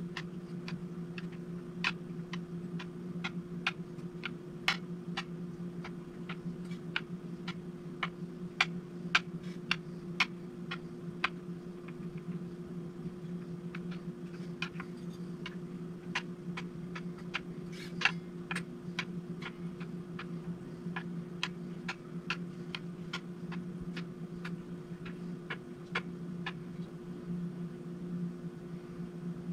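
Fret rocker tapping and rocking on the frets of a Harley Benton TE-62CC's maple neck, giving many irregular light clicks as it is moved from fret to fret to find high frets. A steady low hum runs underneath.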